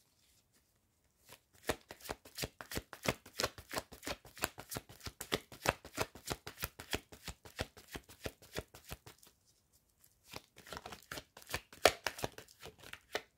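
A deck of tarot cards being shuffled by hand: a quick, dense run of card flicks and slaps that stops for about a second near nine seconds in, then starts again.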